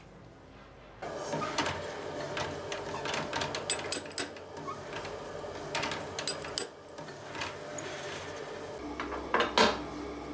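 Metalworking clatter: tools and metal parts knocking and clinking, with several sharp metallic strikes, over a steady hum that starts about a second in.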